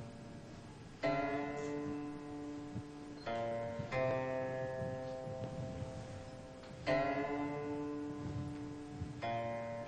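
Slow background music on a plucked string instrument: a handful of notes or chords struck a few seconds apart, each left to ring and fade.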